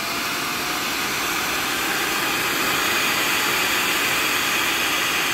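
Centrifugal blower fan running, its rush of air growing louder over the first few seconds as the speed-controller knob is turned up, then holding steady at high speed.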